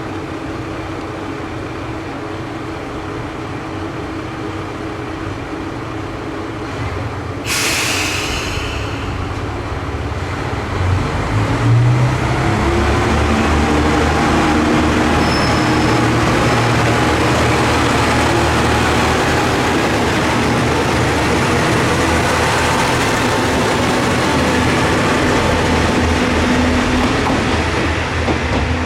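Kanto Railway Joso Line diesel railcar idling, then a sudden hiss of compressed air about a quarter of the way in. Its diesel engine then revs up with a rising drone as the train pulls away and runs on steadily and louder.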